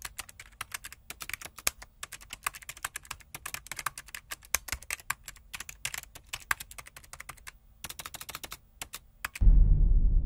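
Keyboard typing sound effect: rapid, irregular key clicks that accompany text being typed out letter by letter. Near the end the clicks stop and bass-heavy music comes in loudly.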